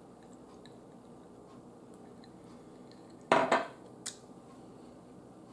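A drinking glass set down on a table a little past three seconds in, two quick knocks, followed by a single light clink; otherwise quiet room tone with a few faint ticks.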